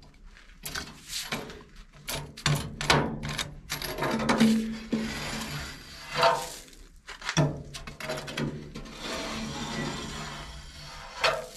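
Metal scraper tool scraping and knocking inside the flue passages of a Mimsan solid-fuel boiler, raking out soot and ash: a run of short clinks and scrapes of metal on metal, then a longer rasping scrape near the end.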